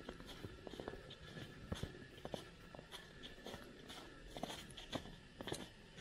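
Footsteps crunching on a forest trail at an easy walking pace, each step a short crackly crunch.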